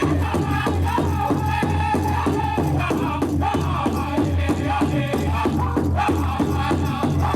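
Powwow drum group singing a fancy dance contest song: a steady, evenly spaced beat on a big drum under high group singing.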